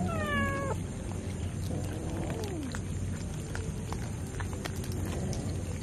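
A domestic cat meows once, a short call falling slightly at the end, then a lower, longer call that rises and falls about two seconds in. Scattered faint clicks and a low steady hum lie underneath.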